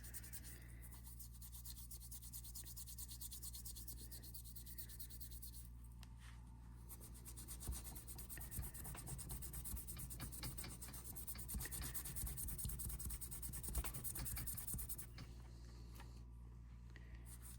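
Melamine eraser sponge scrubbing a G-Shock's resin strap: faint, quick rubbing strokes that grow busier about halfway through, over a steady low hum.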